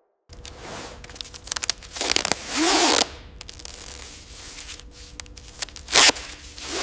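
Workshop tool and handling noises: scraping, rubbing and clicks, with a louder noisy burst lasting about a second, about two seconds in, and a short loud one about six seconds in.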